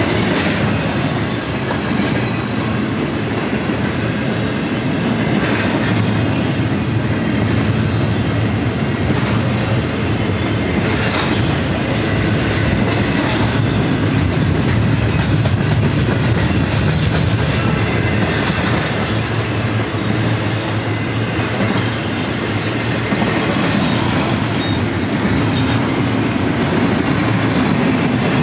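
Union Pacific double-stack intermodal train's well cars rolling past: a steady, loud rumble of steel wheels on the rails, with a few brief sharp sounds standing out now and then.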